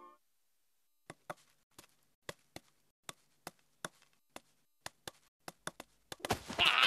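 Cartoon sound effects for a small bird on a branch: a series of sharp dry taps, roughly two a second at uneven spacing, then a louder short rustle near the end.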